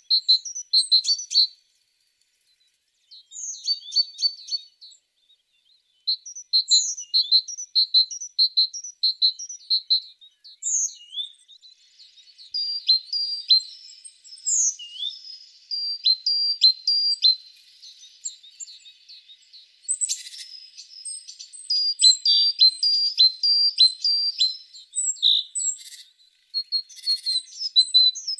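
Tits singing: quick runs of short, high repeated notes, broken by a couple of brief pauses early on. The song turns denser and overlapping in the second half.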